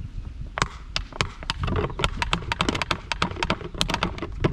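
Elephant toothpaste reaction of 30% hydrogen peroxide with potassium iodide starting in a large plastic water can: sharp crackling pops from the rising foam, beginning about half a second in and coming thicker and faster.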